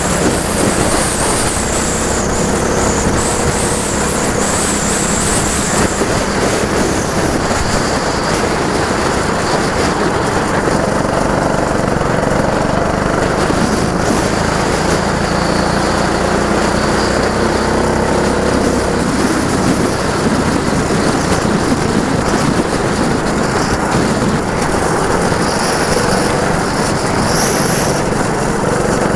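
Go-kart engine running close to the microphone, its pitch rising and falling repeatedly as the kart accelerates and slows.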